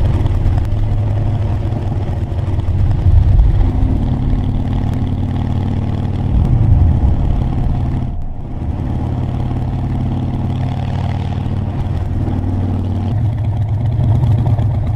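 Vintage motorcycle engine running steadily, with a brief break about eight seconds in.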